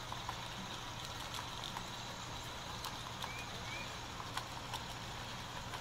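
HO-scale model freight cars rolling past, their wheels clicking irregularly over the rail joints, with two short high squeaks about three seconds in, over a steady low hum.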